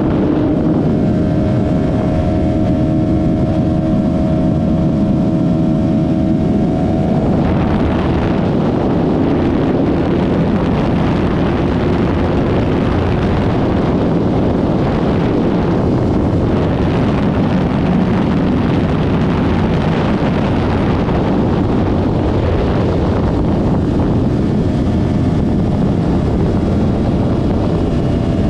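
Yamaha R3's 321 cc parallel-twin engine through an aftermarket M4 Street Slayer exhaust while riding. It holds a steady note for the first several seconds, turns louder and rougher from about seven seconds in as the bike pulls harder, and settles back to a steady note near the end.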